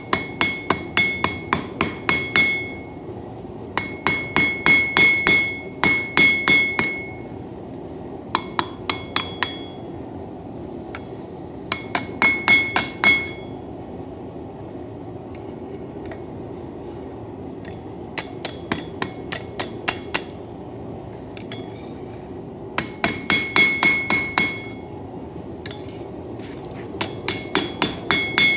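Hammer striking hot steel on an anvil in runs of quick blows, about four or five a second, with short pauses between the runs; each blow rings brightly. The steel is a knife forged from coil spring, being straightened at the handguard and handle.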